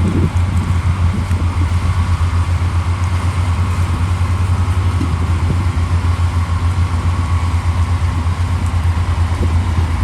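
Heavy diesel engine of earthmoving machinery running steadily, with a low, even throb and a faint steady whine above it.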